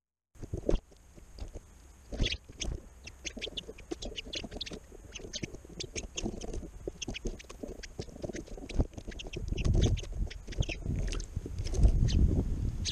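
House sparrows chirping rapidly and repeatedly, with louder low rustling and thumps in the second half.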